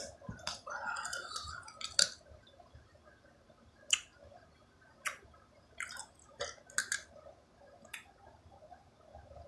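A person chewing close to the microphone, with sharp crunching clicks that come singly or in quick pairs about once a second.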